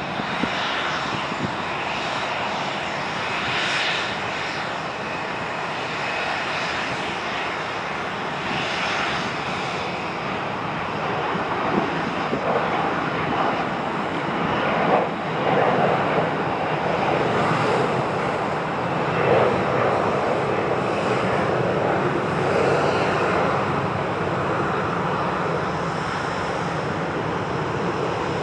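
Jet airliner engines running, a steady rushing whine with a few surges partway through. Near the end a regional jet is climbing out after takeoff.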